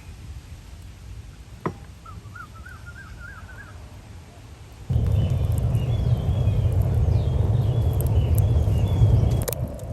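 A bird gives a short warbling call against quiet outdoor ambience. About five seconds in, a loud steady rumbling noise starts suddenly, with more bird calls heard over it.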